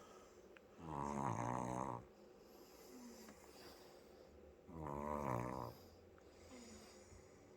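Sleeping 16-month-old toddler snoring loudly: two snores of about a second each, roughly four seconds apart, with faint breathing between them.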